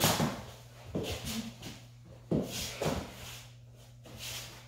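Bare feet thudding and shuffling on a laminate floor and a small ball being kicked: a handful of sharp knocks, the loudest at the start, over a steady low hum.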